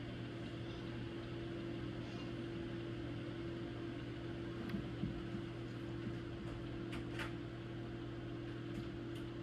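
A steady machine hum, like a fan or appliance running, with a few faint sharp clicks scattered through it.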